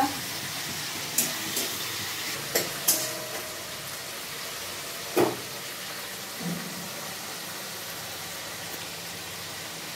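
Tomatoes frying in oil in a wok: a steady sizzle, with a few sharp clicks in the first three seconds and a louder knock about five seconds in.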